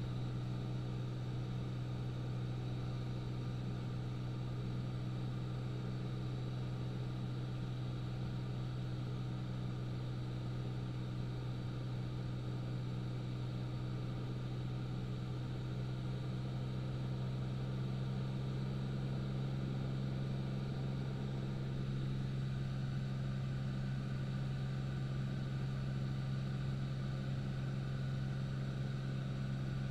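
Piston engine and propeller of a high-wing light aircraft in flight, a steady drone with a strong low hum that does not change.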